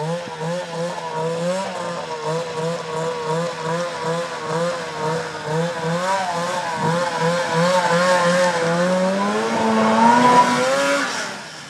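Arctic Cat ZL600 snowmobile's two-stroke engine running at low revs with a wavering, pulsing note as the sled creeps forward. From about eight seconds in, the pitch rises as it speeds up and passes close by, then the sound cuts off sharply near the end.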